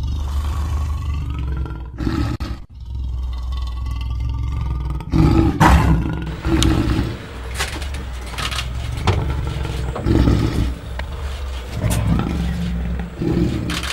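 Lion growling, with several louder roars breaking out over a continuous deep growl; it starts abruptly.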